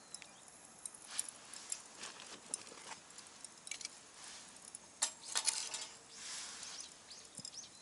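Scattered light clinks and small clatters of charcoal pieces and the metal grill being handled, with a short rush of noise about six seconds in.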